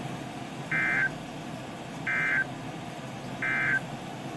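Emergency Alert System end-of-message (EOM) signal: three short, identical bursts of shrill two-tone digital data chirp, about 1.3 seconds apart, marking the end of the alert.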